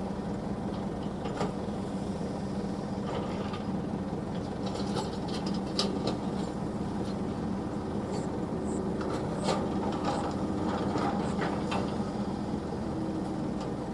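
Heavy earthmoving machinery, a diesel engine running steadily, with a run of scraping and knocking sounds through the middle as soil and metal are worked.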